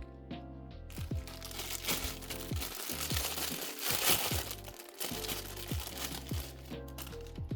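Lo-fi background music with a steady beat, over a stretch of crinkling and rustling that is loudest about four seconds in and dies away near the five-second mark.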